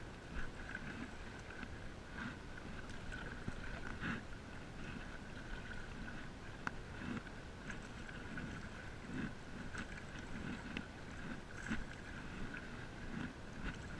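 A paddle dipping and pulling through the water and small waves lapping against an ISLE Explorer inflatable stand-up paddle board, in a steady wash of water sound broken by many small irregular splashes.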